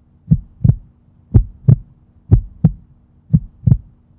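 Heartbeat sound effect: deep double thumps, lub-dub, about one pair a second, four beats in all, over a faint steady hum.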